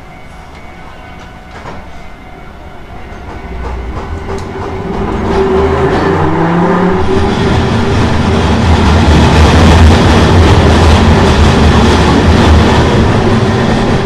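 Hankai Tramway Mo 351-type tram's nose-suspended traction motors growling and rising in pitch as the car pulls away and speeds up, with the rumble of the wheels on the rails. The sound grows louder over the first several seconds, then holds steady.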